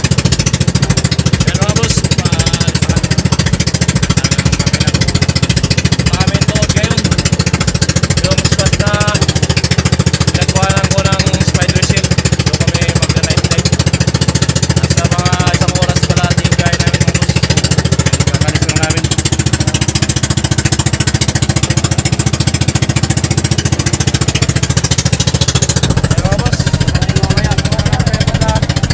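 Engine of a motorized outrigger boat (bangka) running steadily while the boat travels at speed, a loud, rapid pulsing drone.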